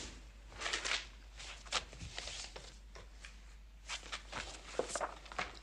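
Papers and a cardboard file folder rustling as they are handled and leafed through, in irregular short scraping bursts with a few sharp clicks.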